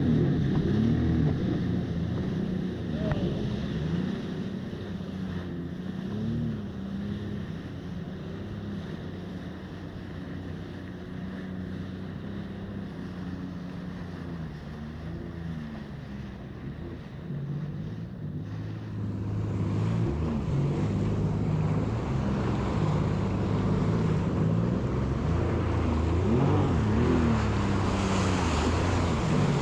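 Yamaha jet ski engine running over choppy water, with wind and water rushing past. The engine pitch swells up and down a few times, and the wind and water noise grows louder about two-thirds of the way through.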